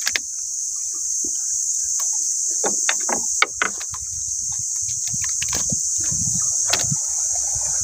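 Scattered knocks and water splashes around a small fishing boat as a net is worked aboard, over a steady high drone of insects.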